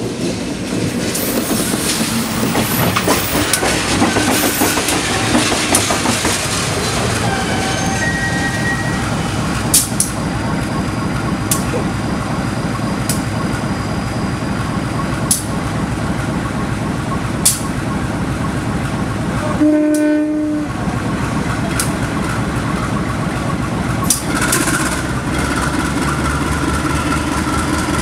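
Diesel-electric locomotive running light at shunting speed, its engine rumbling steadily as it approaches. Now and then its wheels click sharply over rail joints.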